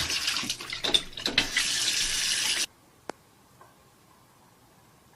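Water running steadily, then cutting off suddenly about two and a half seconds in, followed by a low background with a single sharp click.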